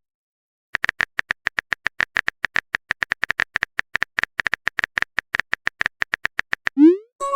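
Quick, even clicks of a phone keyboard typing sound effect, starting just under a second in. Near the end comes a short rising blip, the start of a message sent or received chime.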